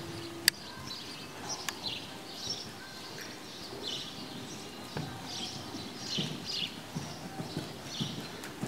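Hoofbeats of a horse trotting on soft sand arena footing, a steady rhythm of dull thuds about twice a second. A single sharp click about half a second in is the loudest sound.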